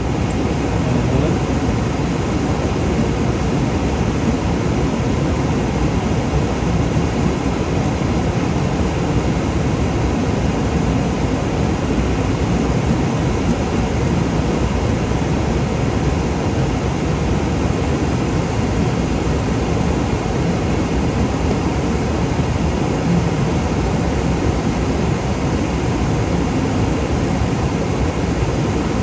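Steady cockpit noise of an aircraft in high-altitude flight: an even, unbroken rush, heaviest in the low end.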